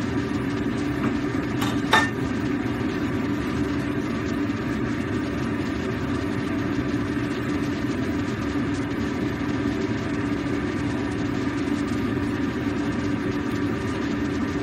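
A steady mechanical hum with a low drone, constant throughout, from a kitchen appliance running behind the cooking. One sharp knock about two seconds in.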